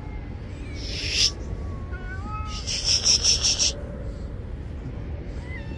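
Stray cats meowing faintly, with two bursts of loud high rustling or hissing, a short one about a second in and a longer pulsing one around three seconds in.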